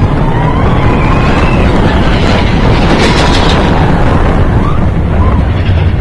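Mine-train roller coaster running fast along its track, a loud, continuous rumble and rattle from the cars.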